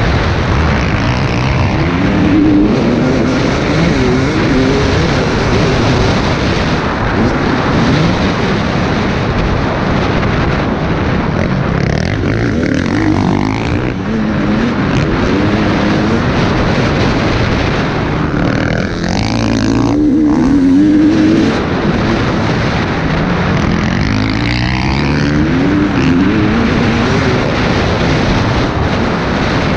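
KTM 250 EXC TPI two-stroke dirt bike engine revving hard, its pitch climbing and dropping again and again as the rider accelerates and backs off. Heavy wind rush on the helmet-mounted microphone runs under it throughout.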